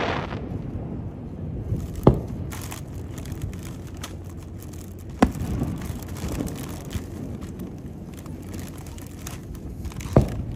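Aerial firework shells bursting in a fireworks display: three loud bangs about two, five and ten seconds in, with a low rumbling haze of noise between them.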